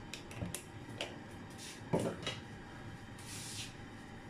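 Quiet kitchen background with a few faint clicks and knocks, the loudest a single low knock about two seconds in, and a short soft hiss a little after three seconds.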